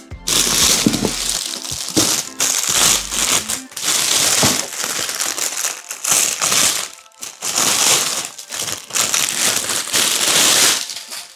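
Clear plastic wrapping crinkling loudly as it is handled and pulled off a soft carrying bag, in bursts with brief pauses.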